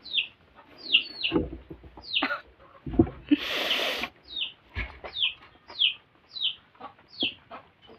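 Chickens calling: short, high peeps that fall in pitch, repeated about once a second. A few soft knocks and a short rush of noise come a little before the middle.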